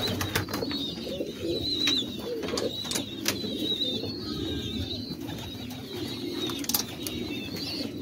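Domestic pigeons cooing continuously, with a thin, wavering high twitter over it and scattered sharp clicks and taps from birds moving about.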